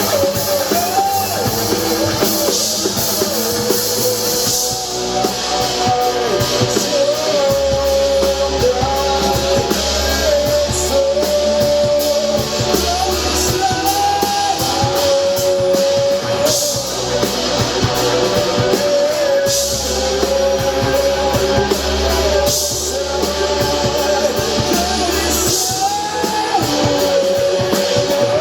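A rock band playing live, with a lead voice singing over electric guitar, bass and drum kit.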